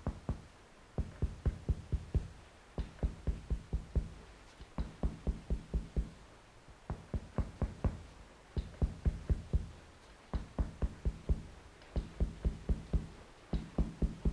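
Rapid knocking from a Chinese bone-setter's hammer tapping on the body to realign it, about five blows a second in runs of five or six with short pauses between, each blow with a low ring.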